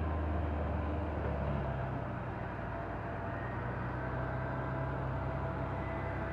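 Claas Jaguar forage harvester running under load as it chops whole-crop cereal silage, with the silage tractor running alongside. Together they make a steady low engine drone with a thin, steady whine above it.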